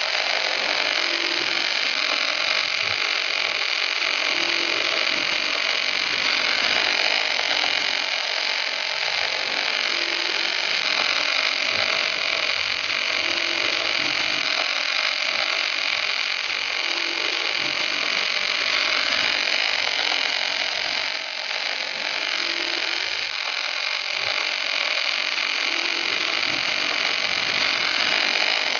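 Steady hiss of gas-shielded wire-feed welding arcs from a portable double-sided welding tractor with two torches, laying a continuous weld.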